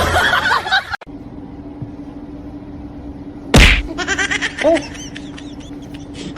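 A single loud smack about three and a half seconds in, followed by a run of quick high-pitched chirps over a steady low hum.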